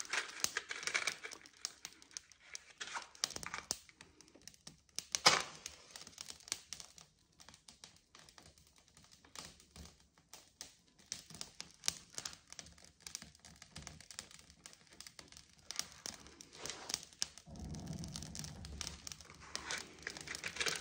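Matches being struck and handled at their box while the paper and twigs in an open wood stove catch and give light, scattered crackles; the loudest is one sharp burst about five seconds in.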